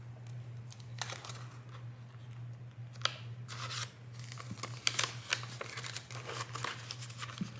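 Paper banknotes and crinkly plastic binder envelopes rustling in irregular bursts as cash is handled and the envelopes in a ring binder are flipped, over a steady low hum.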